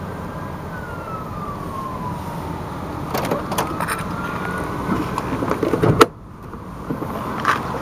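The 2003 Chevrolet Astro van's 4.3-litre V6 idling steadily, heard from inside the cabin, with a faint tone that slowly falls and then rises again. There are a few small clicks from handling midway, and a sharp knock about six seconds in that is the loudest sound.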